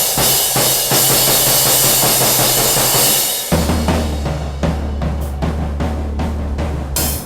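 Acoustic drum kit being played. First comes a dense wash of cymbals over drum hits. About halfway through the cymbal wash stops, leaving separate drum strikes over a deep, sustained low boom.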